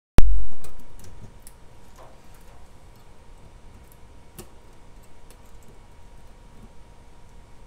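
A sudden loud low thump just after the start, then faint scattered clicks and ticks as hands handle the metal FEP film frame of a resin printer vat.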